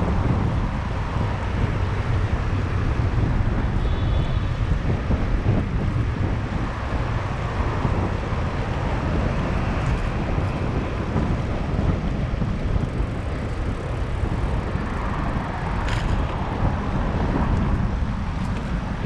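Wind rushing over the microphone of a camera on a moving bicycle: a steady low rumble, with one sharp click about three quarters of the way through.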